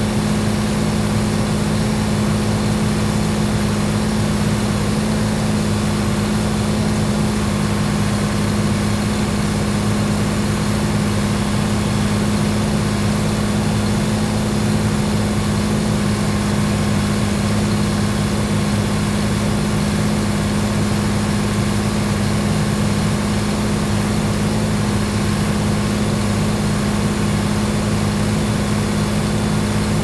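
A steady, unchanging mechanical hum with a strong low note and overtones: an engine or motors running at constant speed.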